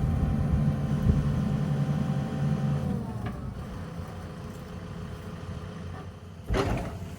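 Diesel engine of a Mahindra backhoe loader running under load with a steady whine, then easing off to a quieter run about three seconds in. A brief loud noise comes near the end.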